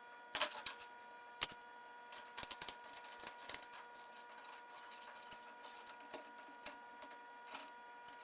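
Scattered light metallic clicks and clinks of steel fender washers and a threaded bolt being handled and seated against a bicycle head tube, as a homemade bearing-cup press is set up.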